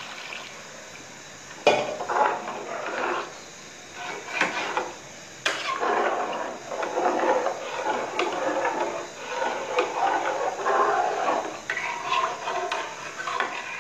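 Long metal spoon stirring rice and water in a metal cooking pot, scraping and knocking against the pot's sides, with two sharp knocks near the start and near halfway, then steady irregular scraping.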